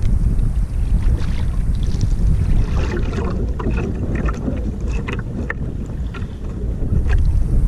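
Wind rumbling on the microphone and water rushing and splashing against the hull of an outrigger boat moving through choppy sea. A burst of short splashes comes in the middle.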